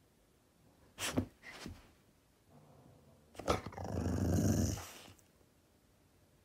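Dog growling in play: two short sharp noises about a second in, then a louder growl starting about three and a half seconds in and lasting over a second. It is a mean-sounding play growl, not aggression.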